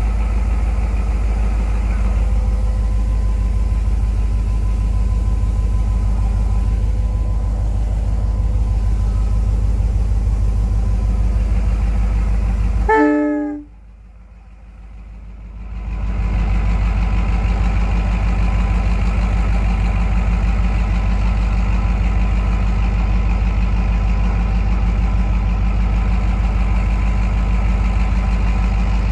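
EMD GL18B locomotive's eight-cylinder 645 diesel engine running steadily and loudly, with heavy rain hissing over it. About halfway through, a brief high-pitched sound is heard, then the sound drops away sharply for about two seconds before the engine returns.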